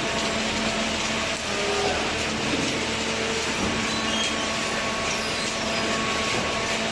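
Machinery running with a steady noise and a low, even hum.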